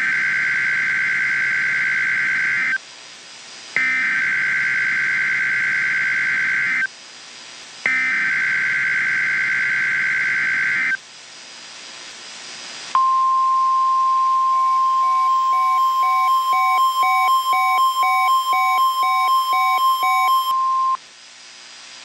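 Emergency Alert System SAME header: three bursts of warbling digital data tones, each about three seconds long with a second's gap between them. After a short pause comes a steady single-pitch alert tone lasting about eight seconds, with a quicker beeping pattern over it. Together they signal the start of an emergency alert broadcast.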